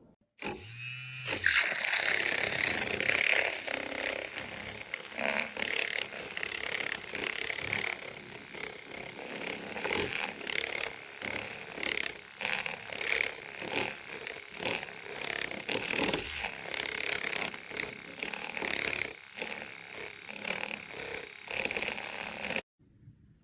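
Battery-powered Zulay Kitchen handheld milk frother running, its small motor spinning the whisk up just after the start and then churning through a drink with a splashy whir for about 22 seconds before stopping abruptly.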